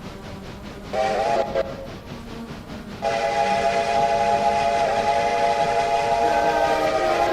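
Train whistle sounding a short blast and then a long held blast, a chord of several tones. A faint rhythmic beat of about five strokes a second runs beneath it before the long blast.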